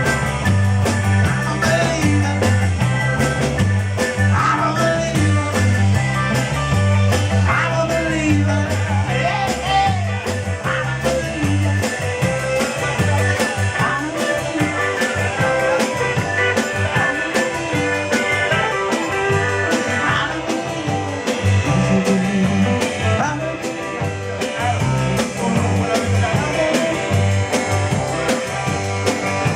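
Live rock band playing: a steady drum beat and a repeating bass line, with electric guitar over the top.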